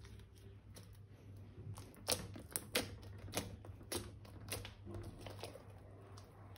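Slime being worked by hand, giving a run of sharp sticky clicks and pops, about seven spread over a few seconds, the loudest two close together near the middle.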